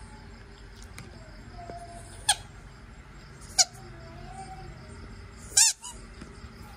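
Rubber squeaky ball squeaking as a Shiba Inu bites down on it: three short, sharp, high squeaks a second or two apart, the last one the loudest and longest, with a wavering pitch.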